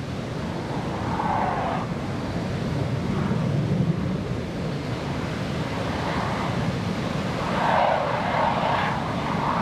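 Jet engine noise from a USAF Thunderbirds F-16 Fighting Falcon in a display pass, a steady rumble that grows gradually louder.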